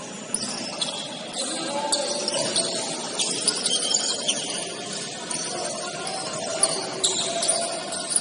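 Basketball game sounds: sneakers squeaking in short, scattered chirps on the court floor over a murmur of indistinct players' voices.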